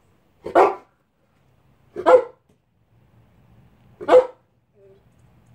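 A dog barks three times, short single barks spaced about one and a half to two seconds apart.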